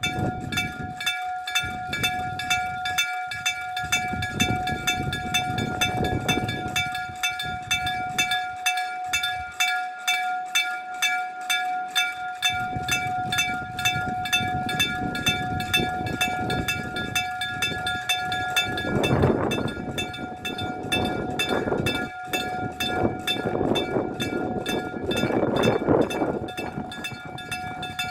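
Electric-bell level-crossing warning bell ringing continuously. Its hammer strikes in a fast, even rhythm with a steady ringing tone, warning that a train is approaching. A low rumbling noise swells and fades beneath it.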